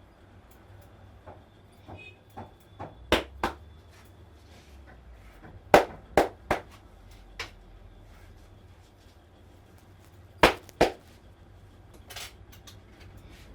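Sharp hand slaps and claps of a barber's head massage, in irregular groups of two to four strikes, the loudest about three, six and ten seconds in.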